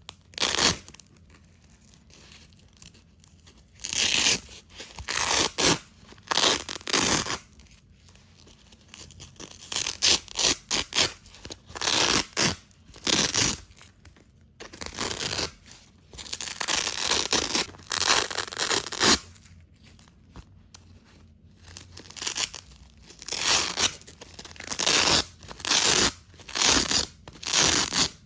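Hook-and-loop (Velcro) strips ripped apart over and over, each rip a crackly tearing of up to about a second, coming in irregular runs with short pauses between.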